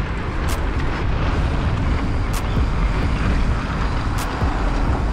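Nukeproof Scout hardtail mountain bike rolling down a dirt singletrack, tyre and trail rumble mixed with heavy wind buffeting on the helmet-mounted camera. A few sharp clicks from the bike come about every two seconds.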